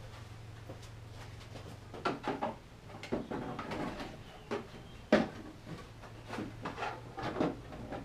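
Irregular knocks, taps and scraping as a PVC foam-board panel is handled and pushed into place against a fibreglass inner wing in a car's engine bay, with one sharper knock about five seconds in.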